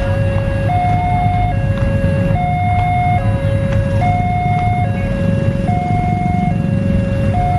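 Railway level-crossing warning alarm sounding while the barrier is down for an approaching train: an electronic two-tone signal alternating high and low, each note lasting just under a second, repeating steadily. A low rumble of idling motorcycles and road traffic runs underneath.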